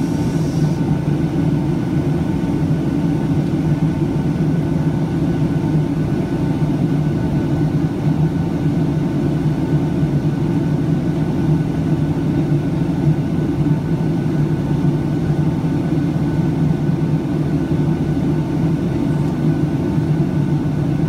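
Steady cabin noise inside a Boeing 757-200 airliner in flight: an even low rumble of jet engines and airflow, with a faint steady whine above it.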